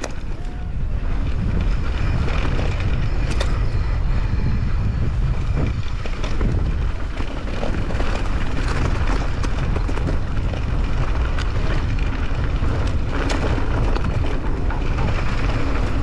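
Wind buffeting an action camera's microphone while riding: a steady, heavy low rumble with road noise underneath.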